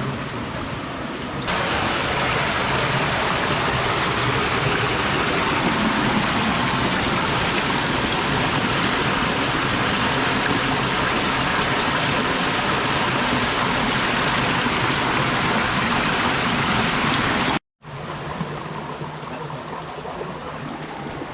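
Steady rush of a flowing stream, stepping louder about a second and a half in; it cuts out abruptly near the end and comes back quieter.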